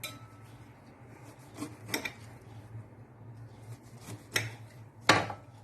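Kitchen utensils knocking and clinking, four sharp knocks with the loudest near the end, as a lemon is cut into quarters and packed with salt for preserving.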